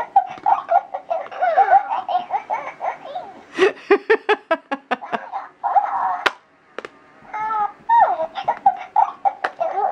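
Hatchimals electronic toy giggling and babbling in a very high, chirpy voice, with a run of quick laughs about four seconds in.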